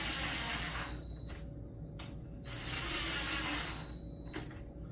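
Cordless power driver driving screws in with two short runs. The first stops about a second in, and the second starts at about two and a half seconds and runs for about two seconds, each with a steady high whine.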